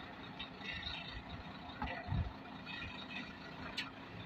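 Laden heavy lorry's engine running at a distance, a low steady hum, with a dull low thump a little after two seconds in.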